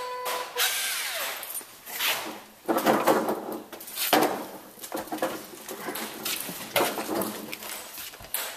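Makita cordless caulking gun running in stops and starts as it pushes out a bead of 3M 5200 marine sealant, with clicks and handling noise between runs.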